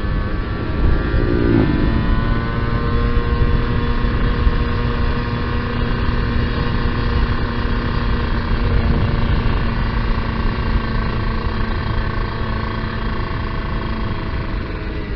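Kawasaki Ninja R's two-stroke single-cylinder engine running under way. The revs rise about a second and a half in, then hold steady at cruising speed.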